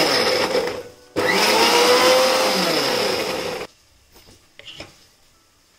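Electric mixer grinder (mixie) grinding cooked tomato and onion into a paste in its steel jar, run in two bursts: it stops briefly just under a second in, starts again and cuts off at about three and a half seconds. A few faint clicks follow as the jar lid is taken off.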